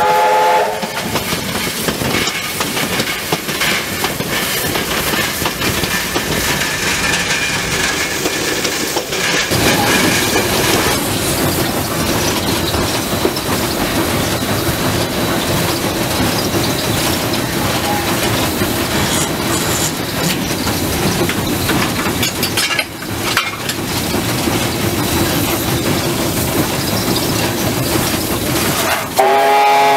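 Steam locomotive running, heard from the footplate: a steady clatter and rumble of the engine and wheels on the rails. Its steam whistle ends a blast right at the start and sounds again near the end.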